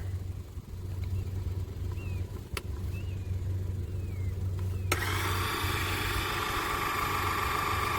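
A low steady hum, then a click about five seconds in as the electric car jack's motor starts and runs with a steady whine. The jack is rising although the down button was pressed.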